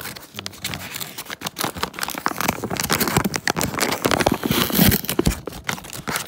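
Paper sandwich bag crinkling and rustling as hands pull it open at its sealing sticker, a dense run of crackles and tearing, loudest about three to five seconds in.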